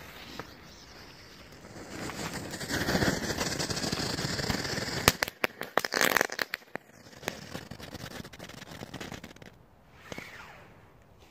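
Small category 1 ground firework going off: a few seconds of loud hissing, then a sharp bang about five seconds in and a quick run of crackles, tailing off into fainter scattered crackling.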